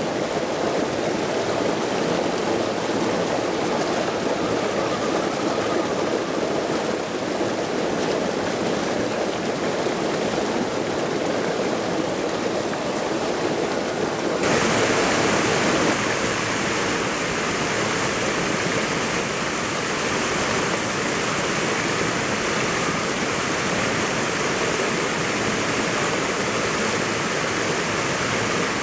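Steady rushing of a river over rock and a small waterfall pouring into it. About halfway through the sound turns abruptly brighter and hissier.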